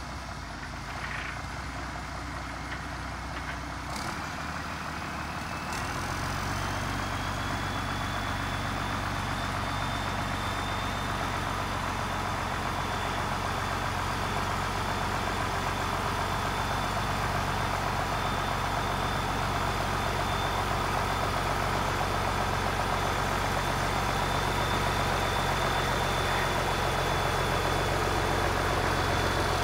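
International Harvester 1066 tractor engine running steadily as the tractor drives closer, slowly growing louder. About four to six seconds in, the engine note steps up and a high whine rises and then holds.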